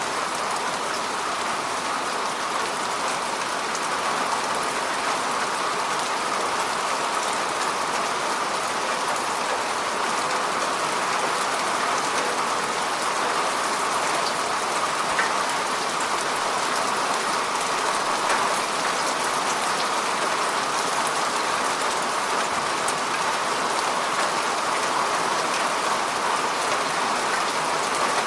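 Steady rain falling on the surface of a lake, a dense even patter of drops on water.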